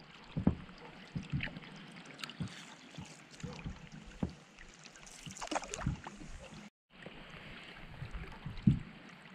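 A canoe being paddled in the rain: a steady hiss of rain on the lake, with irregular soft knocks and splashes of water against the hull. The loudest knock comes near the end.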